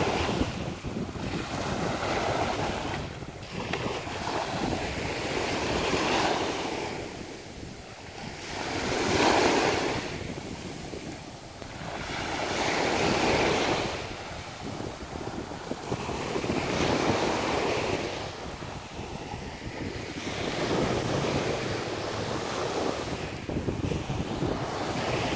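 Small waves breaking and washing up a sandy shore, the surf swelling and fading every three to four seconds, loudest about nine seconds in. Wind buffets the microphone with a steady low rumble underneath.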